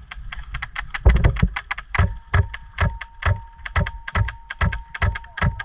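Airsoft guns firing in a firefight: a dense, irregular run of sharp clicking shots, heavier from about a second in, with a faint steady tone under it in the second half.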